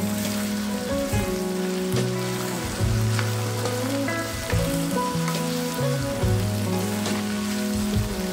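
Sliced okra sizzling and crackling in hot oil in a pan while a spatula stirs it, under background music with held low notes changing about once a second.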